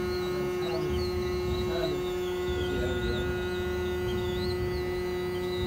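Hot air rework gun blowing heat up under a phone circuit board to desolder a charging socket: a steady electric hum with a fainter, wavering high whine above it.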